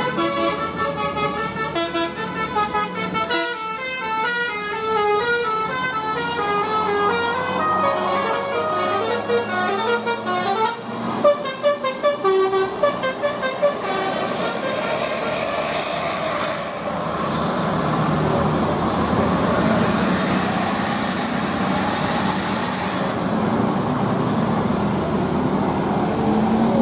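Tour bus's basuri telolet horn playing a quick melody of stepping notes for about fourteen seconds, then giving way to steady, unpitched vehicle noise.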